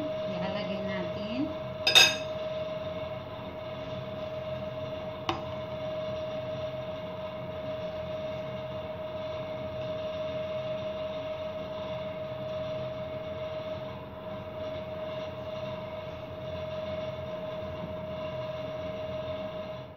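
Serving spoon striking a dish with one sharp clink about two seconds in, ringing briefly, and a lighter tap a few seconds later, as vegetables are served onto a plate. A steady hum runs underneath.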